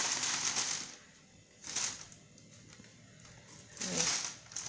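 Plastic bag rustling and crinkling in three bursts as the stiff aloe vera leaves inside are shifted: at the start, about two seconds in, and near the end, the last with a short low pitched sound.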